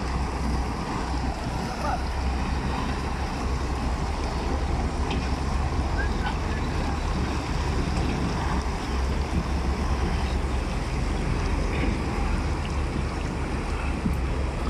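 Water sloshing and splashing around legs wading through shallow river water, over a steady rumble of wind buffeting the microphone.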